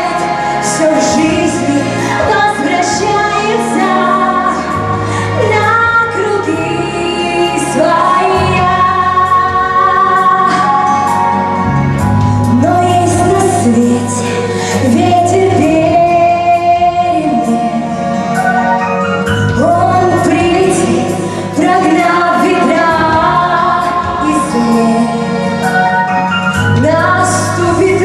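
A song: a voice singing a melody over steady instrumental backing.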